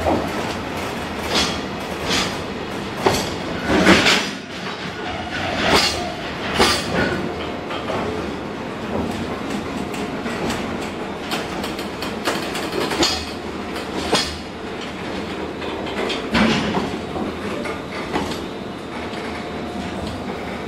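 HB-E300 series hybrid train running along the line: a steady rumble of the train in motion, broken by irregular clatters of the wheels over rail joints.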